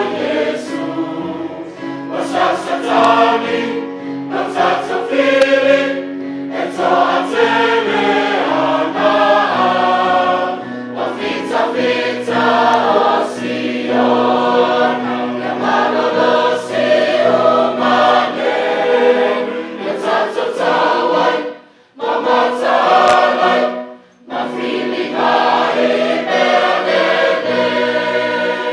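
A church choir sings a hymn in Samoan, in full sustained phrases over held low notes. The singing breaks off briefly twice near the end.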